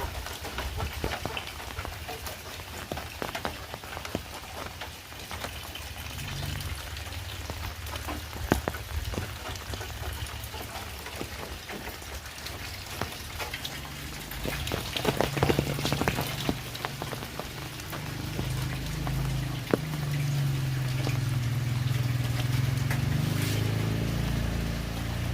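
Heavy rain falling, with many individual drops pattering on surfaces. A low hum rises beneath it over the last several seconds.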